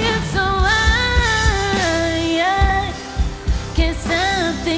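A woman singing a pop song in English live with a band, her melody gliding between held notes over a steady kick-drum beat.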